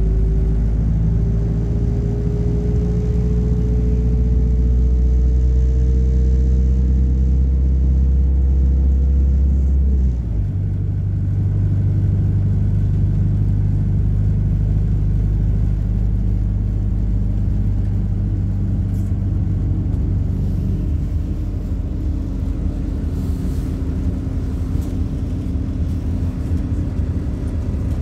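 MAZ-226 bus running on the road, heard from inside the cabin: a low engine rumble with a whine that rises slowly in pitch as the bus gathers speed, cutting off suddenly about ten seconds in, after which the rumble runs on steadier and lower.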